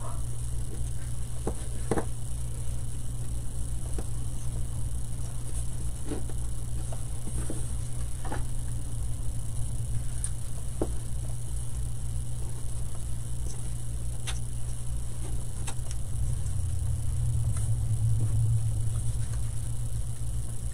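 A steady low hum, a little louder near the end, with a scattered handful of faint taps and clicks as small wooden craft pieces and a glue bottle are handled.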